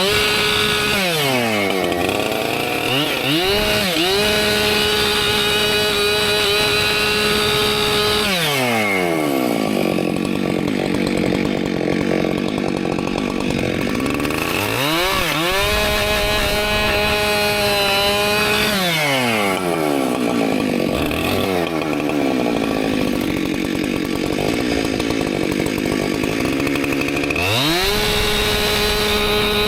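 Husqvarna two-stroke chainsaw cutting firewood, making two long cuts of about six seconds each. The engine runs at high revs, drops in pitch as the chain bites into the log and pulls under load, then revs back up in between and again near the end.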